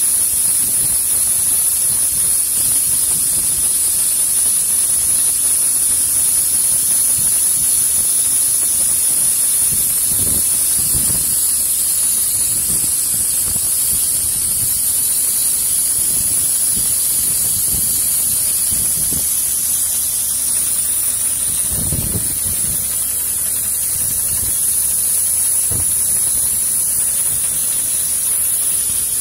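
Compressed-air spray gun hissing steadily as it mists a mix of hydraulic oil and diesel onto a truck bed's conveyor chains. A few low thumps come in around the middle and again later.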